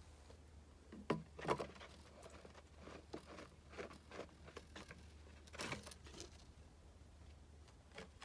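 Irregular knocks, clicks and rustles of things being handled, the loudest two about a second in, over a steady low hum.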